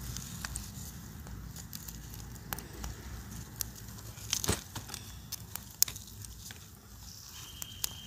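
Wood embers crackling with scattered sharp pops and snaps under ears of corn roasting on skewers, the loudest pop a little before six seconds in.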